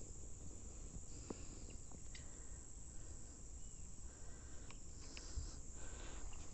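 Steady high-pitched insect chorus, with a few faint clicks scattered through.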